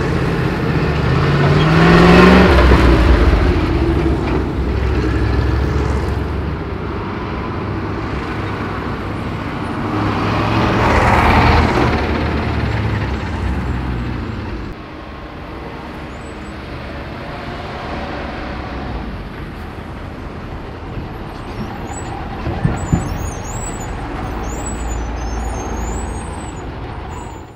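Road traffic with heavy lorries passing close: a lorry engine rises in pitch as it pulls past about two seconds in, another loud pass-by comes around ten seconds in, then a steadier, quieter run of traffic.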